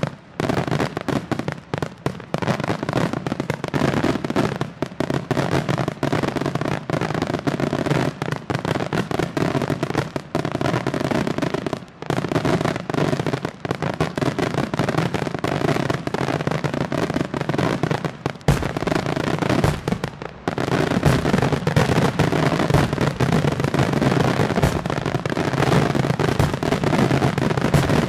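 Aerial fireworks display: a rapid, near-continuous barrage of shell bursts and crackle, with a short lull about two-thirds of the way in, then a denser, louder stretch of bursts.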